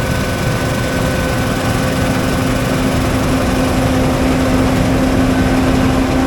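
Heavy farm machine's engine running steadily at a constant speed, a loud even drone with a few steady tones in it.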